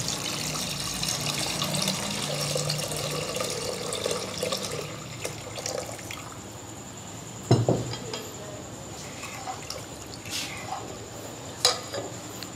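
Lassi made for kadhi being poured into a metal pot of cooked masala, a steady liquid pour that thins out after about five seconds. A single knock comes about seven and a half seconds in.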